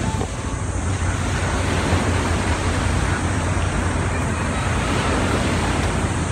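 Steady seaside noise of wind on the microphone and surf, with a constant low rumble.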